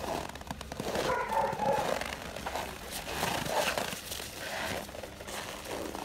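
West Siberian laikas moving about on packed snow, their paws crunching, with a short whine a little over a second in.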